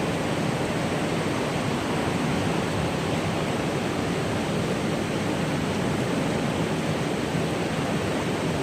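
Steady rush of flowing river water, an even wash of noise without breaks.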